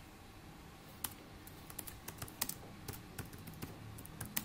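Computer keyboard being typed on: faint, irregular key clicks that start about a second in and come quicker near the end.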